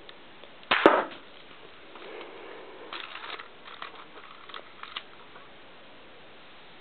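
A loud, sharp snap with a short clatter about a second in, then a run of light plastic clicks and rattles from a K'nex rubber-band gun being handled and reloaded.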